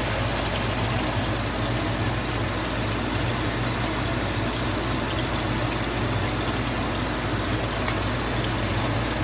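Chicken frying in oil in a cast-iron skillet: a steady sizzle with faint crackles, over a low steady hum.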